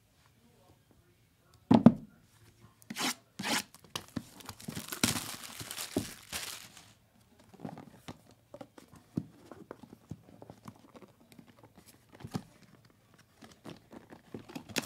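Trading card packaging being handled and torn open: a thump about two seconds in and two sharp knocks, then about three seconds of tearing, followed by light handling clicks.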